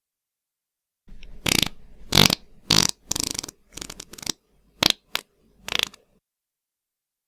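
Fart sound effect: a sputtering string of about ten short farts over some five seconds, uneven in loudness and spacing, the loudest about two seconds in.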